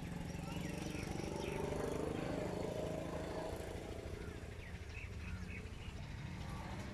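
Motor engine running with a steady low throb, while a higher engine note rises and then fades away in the middle; short bird chirps come now and then.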